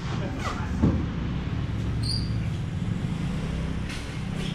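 Light truck's diesel engine idling steadily, with one sharp knock about a second in.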